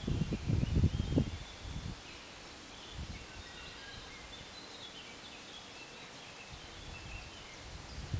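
Small birds singing, a scatter of short high chirps and trills, over faint steady background noise. A low gusty rumble on the microphone is the loudest sound for the first two seconds and returns briefly at the very end.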